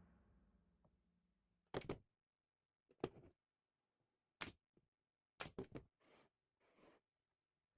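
Background music fading out, then near silence broken by a few short, soft knocks or clicks spaced about a second apart, and two fainter rustles near the end.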